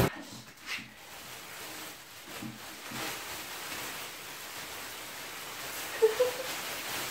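Clear plastic sheeting rustling and crinkling as it is pulled up off a bench mill, with a few light knocks early on. A brief voice sound comes about six seconds in.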